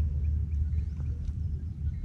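Outdoor ambience: a steady low rumble with faint, short bird chirps above it.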